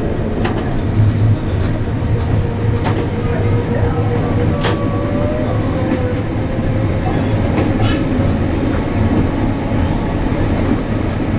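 Gråkallbanen tram running along the track, heard from inside the driver's cab: a steady rumble of motors and wheels, with a few sharp clicks over the rails and a faint thin whine in the middle.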